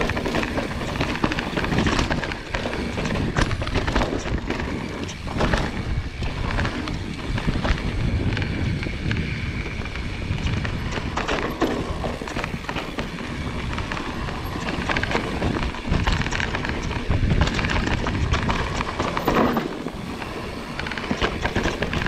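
Marin Alpine Trail XR full-suspension mountain bike riding down a rough dirt trail: steady tyre and wind noise, with frequent knocks and rattles from the bike over bumps.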